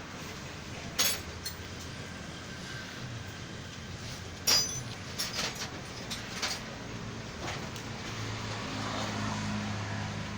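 A steady low machine hum, growing stronger near the end, with a sharp knock about a second in, another at about four and a half seconds, and a few lighter clicks after it.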